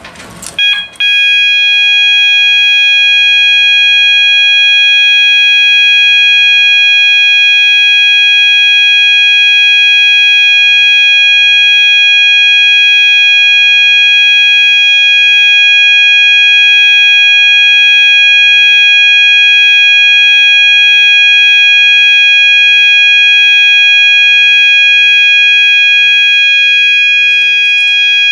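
A System Sensor MASS multi-alert sounder strobe sounds one loud, steady, unbroken high-pitched tone. It starts about a second in, right after a click as a Notifier pull station is key-activated, and cuts off abruptly near the end.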